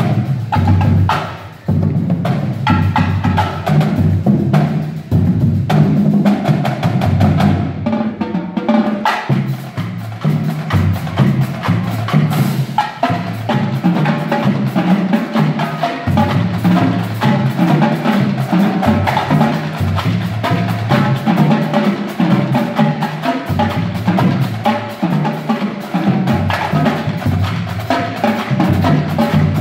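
Marching drumline playing: snare drums, tenor drums and a line of tuned Pearl marching bass drums in a loud, driving percussion passage, the bass drums stepping through different pitches. The level dips briefly about a second and a half in.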